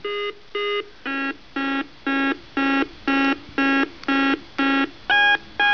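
Coleco Zodiac astrological computer's electronic beeper playing a tune of short beeps, about two a second. The pitch drops after the first two beeps and jumps higher about five seconds in.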